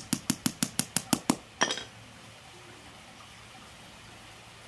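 Small hammer tapping quickly and evenly on the steel end link of a pocket chainsaw chain, about six light metallic taps a second for roughly a second and a half, then one louder ringing clank.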